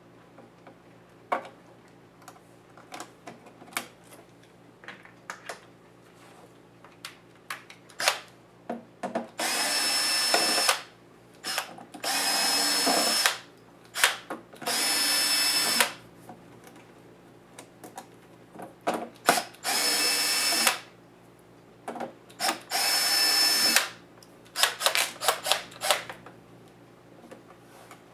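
Small cordless electric screwdriver spinning in five short runs of about a second each, with a steady whine, backing screws out of a laptop's case. Small clicks and taps of the screws and tools are heard between runs.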